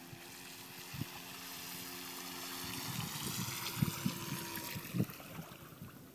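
Homemade RC runabout model boat's motor whining, with the hiss of its spray growing louder as it races in. A few knocks about four and five seconds in come as the hull runs into the sandy shallows, and then the sound falls away.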